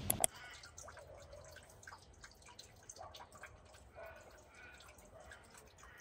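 A rain hiss cuts off with a sharp click at the very start. Then slow water drips plink about once a second, with fainter ticks between, as rainwater runs off the leaves.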